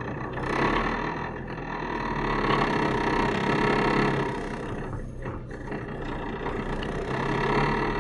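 Car engine and road noise heard from inside the cabin while driving, a steady sound that swells and eases a little.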